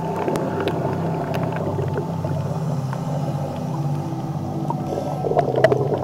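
Steady low hum of a boat engine heard underwater, with scattered faint clicks.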